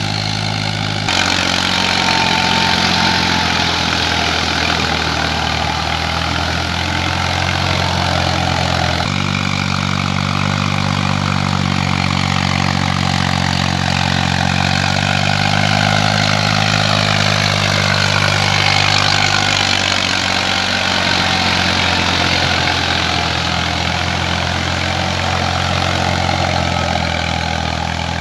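Eicher 480 tractor's diesel engine running steadily while it pulls a rotary tiller through a flooded field. The engine note jumps abruptly about a second in and again around nine seconds, and faint sliding higher tones come and go in the middle.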